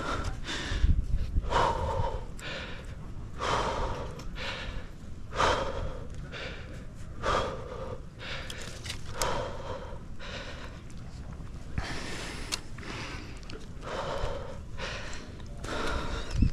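A climber breathing hard, in heavy exhalations about once a second, from the effort of climbing a tree. Wind rumbles on the microphone underneath.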